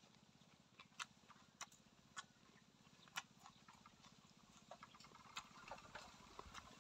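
Near silence with faint, irregular sharp clicks and taps from a person eating with a spoon: utensil taps and mouth sounds, coming a little more often near the end.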